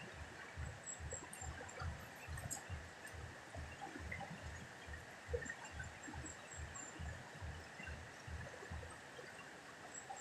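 Fast-flowing muddy river rushing over rocks, a steady wash of water noise.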